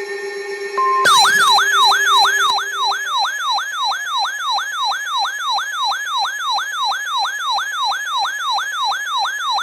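Electronic siren-style alert tone: a rapid yelp of falling pitch sweeps, about three a second, starting about a second in after a short steady beep. It is the attention signal that precedes the voice message of an emergency broadcast's severe thunderstorm warning.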